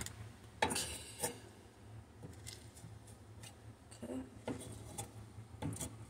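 A few scattered clinks, clatters and scrapes of metal kitchenware as toaster oven parts are handled and scraped clean of baked-on cheese, over a steady low hum.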